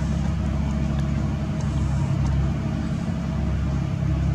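A steady, low engine-like hum that dips briefly about two seconds in, with a few faint high ticks over it.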